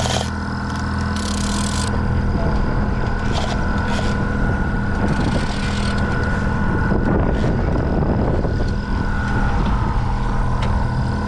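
A boat's motor running steadily at trolling speed, a constant low hum with a steady higher whine, with a few brief hissing bursts over it.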